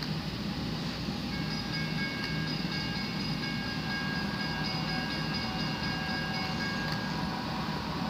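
Train sound: a held chord of several high steady tones comes in about a second in and fades out around seven seconds, over a steady rumbling hum.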